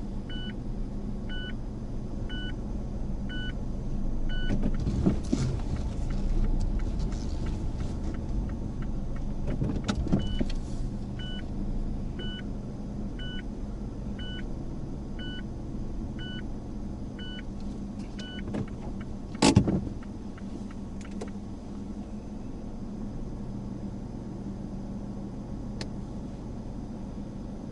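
Car interior of a Mazda Axela hatchback driving slowly, with steady engine and road noise. A turn-signal indicator ticks about one and a half times a second near the start and again through the middle. A single sharp knock comes about two-thirds of the way through.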